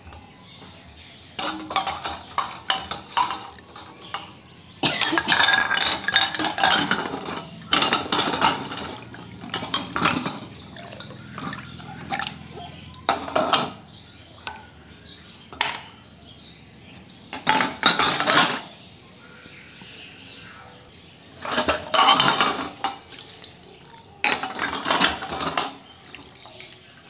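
Glass cups and a glass jar clinking against a stainless steel bowl and each other, with water sloshing, as they are dipped and moved around in a water-and-vinegar soak to clean them. It comes in repeated bouts of clatter a second or two long with short pauses between.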